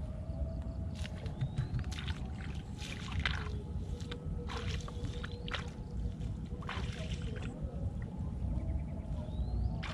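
Wind buffeting the microphone, a steady low rumble, with several short sharp noises scattered through it.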